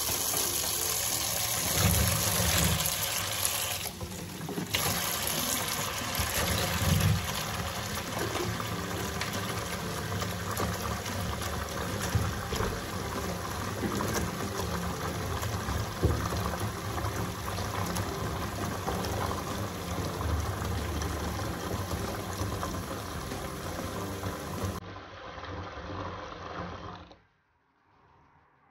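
Kitchen tap running full, water pouring into a plastic basin in a stainless steel sink and filling it with soapy water. The flow thins near the end and stops as the tap is shut off.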